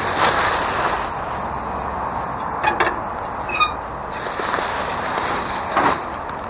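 Steady outdoor background noise with a few short clatters, a brief squeak and a louder rustle, from trash bags and debris being handled in a dumpster.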